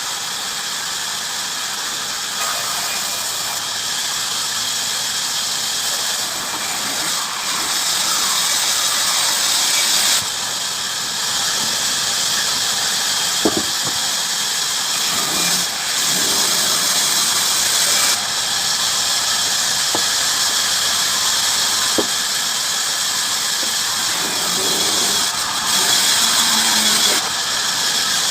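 Bandsaw running and cutting through wood: a steady high, hissing saw noise that grows louder in stretches as the blade works in the cut, with a couple of sharp knocks.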